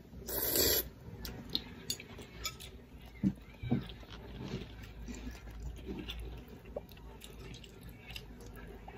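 A person slurping in a mouthful of noodles about half a second in, followed by chewing and light clicks of chopsticks and a spoon against ceramic bowls.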